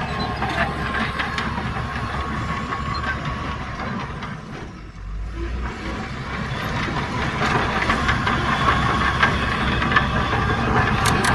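Heavy diesel earthmoving machinery running, with a steady low engine sound overlaid by clanking and hiss. The sound dips briefly near the middle, then builds louder through the rest.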